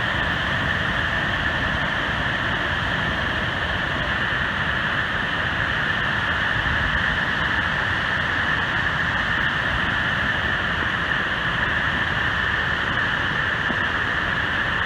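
A large river waterfall rushing steadily, a constant even wash of falling water.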